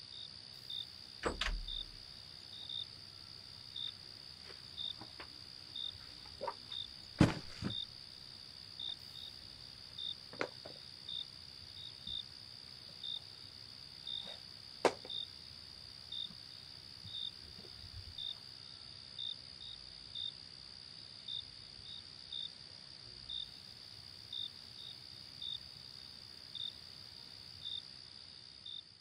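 Night insects: a steady high trill with a cricket chirping over and over, more than once a second. A few sharp clicks or knocks cut through it, the loudest about seven and fifteen seconds in.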